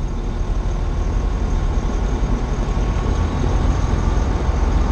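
Tractor-trailer's diesel engine running with road noise, heard from inside the cab as a steady low rumble while driving; the truck is running without a working turbo.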